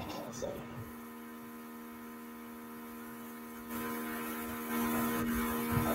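Steady electrical mains hum on the call audio, a stack of even buzzing tones, which the host takes for feedback. It grows louder, with a hiss on top, a little under four seconds in.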